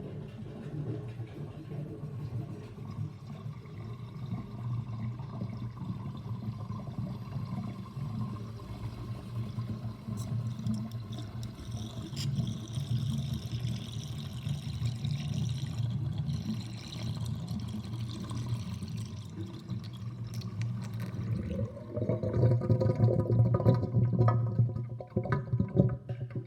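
Kitchen sink draining through its drain basket with the overflow covered: a steady low rush of water going down, turning near the end into a louder, long gurgle.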